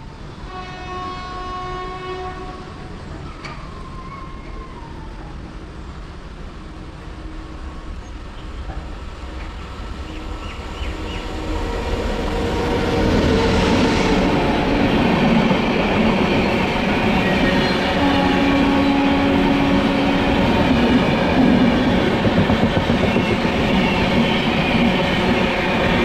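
A train horn sounds for a couple of seconds. Then a train grows louder from about halfway through and passes close by, its wheels running over the rails, with another short horn note near the end.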